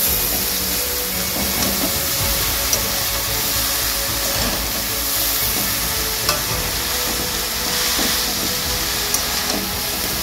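Bathua greens and chopped vegetables sizzling in hot mustard oil in a metal kadai. They are stirred and tossed with a metal spatula that clicks against the pan a few times.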